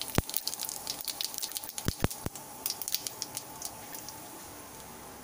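Whole spices (cumin seeds, dried red chillies and bay leaves) crackling and sizzling in hot oil in a metal kadai for a tempering, with many small sharp pops over a steady hiss. A few louder clicks come in the first two and a half seconds, and the popping thins out toward the end.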